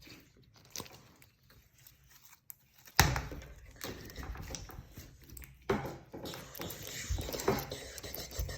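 Slime being squished and worked by hand, with small sticky clicks and pops. A sharper snap or knock comes about three seconds in, followed by steadier crackling and popping.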